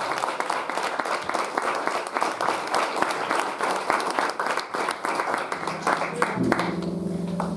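A crowd applauding, with voices among the clapping. The applause thins out near the end as music begins.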